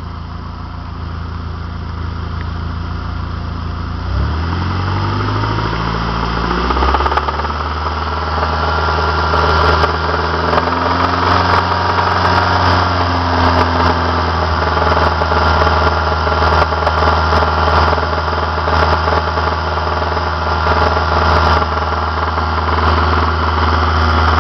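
Saab 9-5's 2.3-litre turbocharged four-cylinder (B235R) engine running, its speed rising about four seconds in and then held steady at raised revs. This is the range where the owner reports the engine knocking badly, above 1500 rpm.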